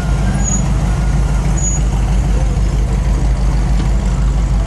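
Several hot rod engines running at low speed as the cars roll slowly past together, a steady, loud, low exhaust note with no revving.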